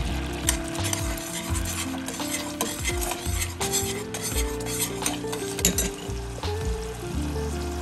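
Hot sauce and butter sizzling in a stainless steel saucepan while a metal spoon stirs it, with many small clicks of the spoon against the pan.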